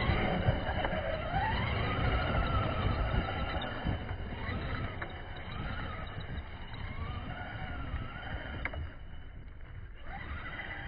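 Brushless electric motor of an Arrma Big Rock 6S RC monster truck whining up and down in pitch as the throttle is worked, over its tyres scrabbling through loose dirt. It grows fainter as the truck moves away.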